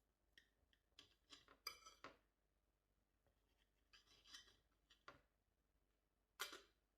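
Faint clinks, taps and short scrapes of kitchen utensils and dishes being handled, with a sharper knock near the end.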